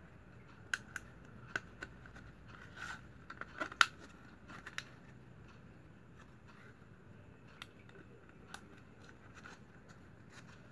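Handling sounds of plastic strapping and a wooden stick: scattered, irregular sharp clicks and light rustling, the loudest click about four seconds in.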